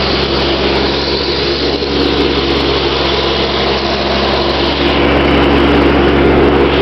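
Iseki SXG ride-on mower running steadily while cutting grass, its engine and mower deck making a loud, even mechanical drone that grows a little louder near the end.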